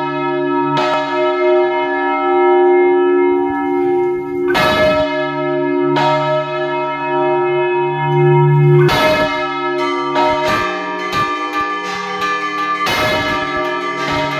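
Large church bell swung full circle by hand on its counterweighted yoke, the clapper striking heavily every few seconds with a long ringing hum between strokes. From about ten seconds in, quicker strokes of smaller bells rung by rope join in.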